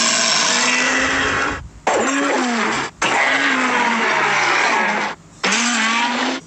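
Sound effect of a monster-like bear owl creature: four harsh, noisy calls in a row, each lasting one to two seconds, with a low wavering tone beneath and short breaks between them.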